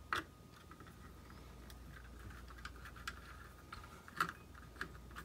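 A small precision screwdriver working on a tiny screw in a drone's main board: light scratchy turning with a few sharp clicks of metal on metal and plastic, the clearest just after the start and another about four seconds in.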